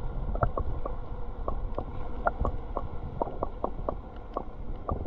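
Water lapping against a kayak's hull: irregular small plinks and taps, a few each second, over a low rumble.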